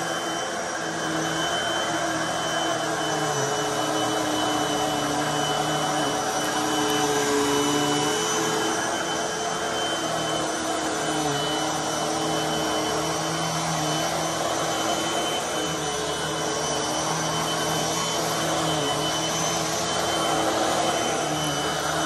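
Hoover WindTunnel 3 High Performance Pet upright vacuum cleaner running on carpet: a steady motor and airflow whine with a thin high tone, its lower hum dipping slightly in pitch now and then.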